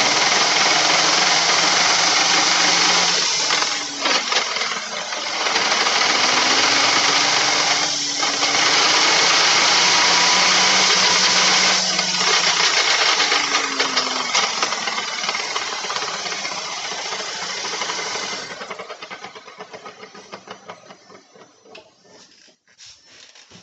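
Front differential of a 2013 VW Beetle 2.5's transaxle making a loud mechanical noise with a low tone that rises and falls, dipping briefly about every four seconds, then fading away over the last five seconds. The owner judges this differential noise definitely bad.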